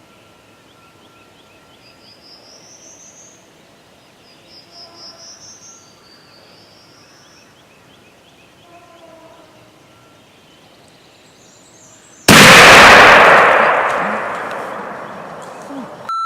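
Songbirds calling faintly, then about twelve seconds in a single loud shotgun blast fired at a wild turkey gobbler, its report rolling away over about three seconds.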